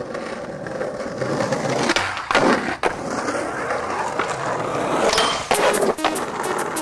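Skateboard wheels rolling on rough asphalt, a steady grinding rumble, broken by a few sharp clacks of the board, two about two and a half seconds in and more near the end.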